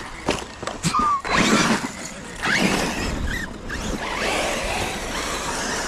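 Battery-electric RC cars running on the track: tyres scrabbling over the ground, with short motor whines rising and falling as the throttle is worked, and a few sharp knocks near the start.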